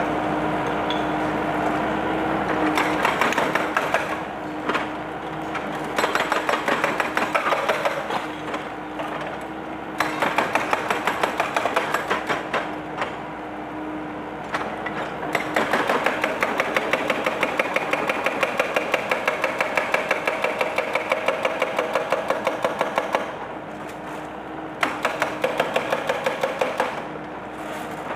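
An excavator's hydraulic breaker hammering in runs of rapid, evenly spaced blows lasting a few seconds each, with short pauses between them, over the machine's steady engine hum.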